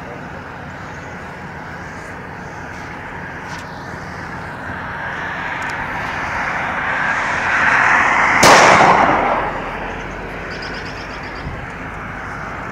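A single handgun shot about eight and a half seconds in: a police officer's pistol fired at a wounded deer to put it down. Under it, the noise of a car on the road swells as it approaches and passes.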